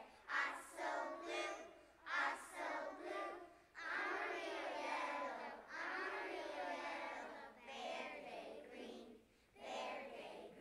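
A group of young preschool children singing together in unison, their many voices blending, with short breaks between phrases.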